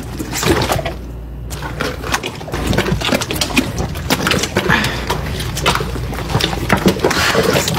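Water splashing in a kitchen sink as a whole raw turkey is washed under the tap, with many irregular sharp splashes and knocks.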